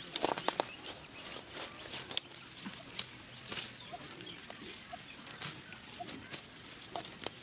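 Sickle cutting napier grass: irregular sharp snaps of stalks being cut and broken, with the swish and rustle of the leaves, the snaps thickest in the first second and again near the end.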